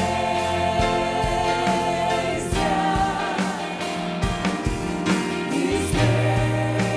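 A live worship band plays, with several singers holding long sung notes over keyboard and acoustic guitar. The bass drops out about two and a half seconds in and comes back near the end.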